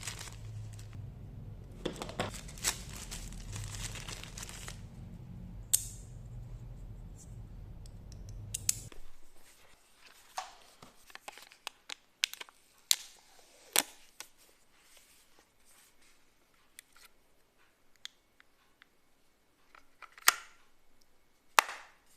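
Packaging being handled during an unboxing: rustling and tearing of paper or plastic for the first few seconds over a low steady hum, which stops about nine seconds in, followed by scattered sharp clicks and taps as parts and the box are handled.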